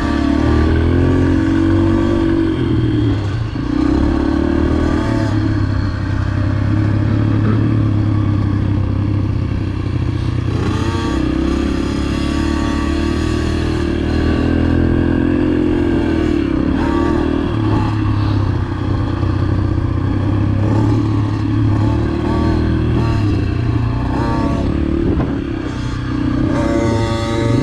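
Dirt bike engine being ridden, revving up and falling back again and again, loud and close throughout.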